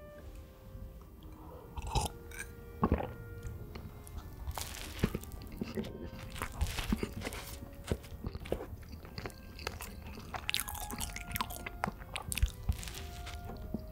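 Close-up eating sounds: bites and crunchy chewing, with the sharpest crunches about two and three seconds in.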